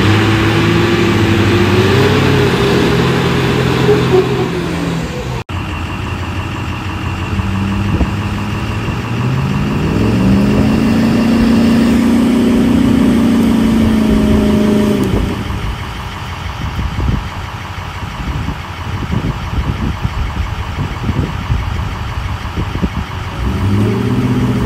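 Pickup truck engines revving hard, cut off abruptly about five seconds in. Then a lifted GMC Sierra pickup's engine revs up through mud, its pitch climbing about ten seconds in and holding for about five seconds. It then drops to an uneven, choppy rumble and revs again near the end.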